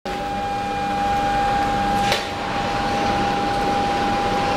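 Steady machinery hum with a constant high whine over it, and one short click about two seconds in.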